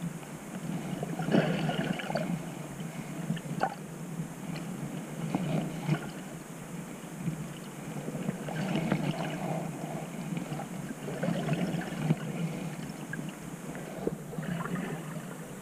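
Water moving around a submerged camera: muffled sloshing and rushing that swells every two to three seconds, with a few faint clicks.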